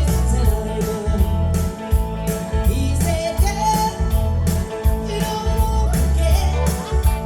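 Live dance-band music in a country rock-and-roll style: a singer over electric guitar, bass and a steady drum beat.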